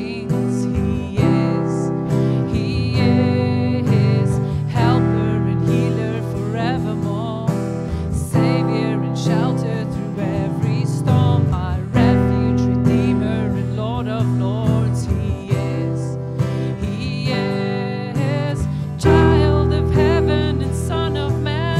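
Live worship song: a woman singing lead over strummed acoustic guitars, with keyboard chords underneath.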